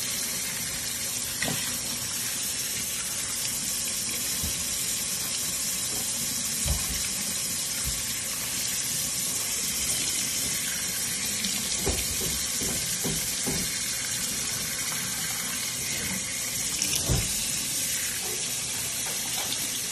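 Kitchen tap running steadily into a stainless-steel sink, the stream splashing over a capuchin monkey sitting in it. A few brief knocks and splashes come through, the loudest near the end.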